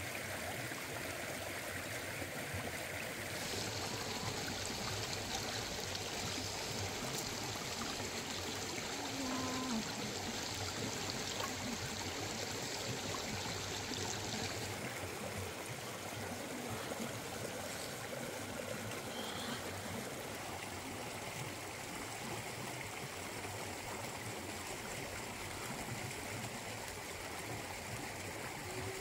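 River water running over rocks, a steady rushing and trickling, brighter and hissier from about four to fifteen seconds in.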